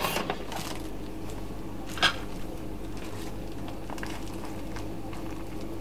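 Cloth wiping down a filled plastic freezer bag: faint rubbing and rustling, with one short crinkle of the plastic about two seconds in, over a low steady hum.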